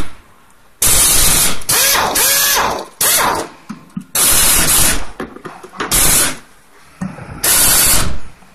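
Pneumatic screwdriver on an air hose running in about six short bursts, each a loud hiss of exhaust air, as it drives screws into the chair's metal seat frame.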